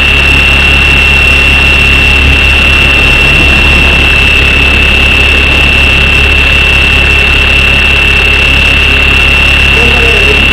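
Align T-Rex 550 electric RC helicopter heard from a camera mounted on it in flight: a loud, steady high-pitched whine from the motor and drivetrain over the rumble of the spinning rotor, held at a constant head speed.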